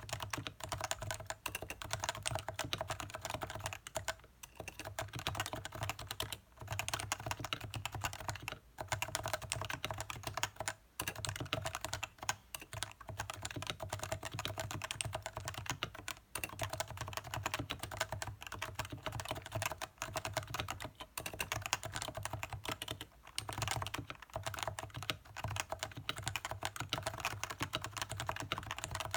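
Stock Leopold FC660C keyboard with Topre electrostatic capacitive switches, typed on quickly and without a break except for short pauses every few seconds.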